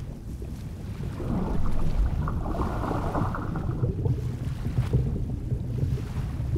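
Water gurgling and bubbling as air escapes from a sinking 3D-printed model ship's hull, louder from about a second in and easing after about four seconds, over a steady low rumble.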